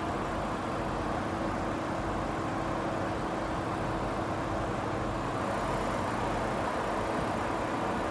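Steady motor-vehicle noise with a constant engine hum and no distinct events.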